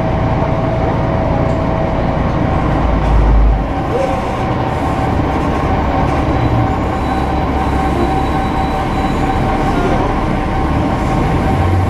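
Articulated city bus's engine and drivetrain running under way, heard from inside the passenger cabin. The steady rumble carries a whine that shifts up in pitch about three to four seconds in, with one low thud near three seconds.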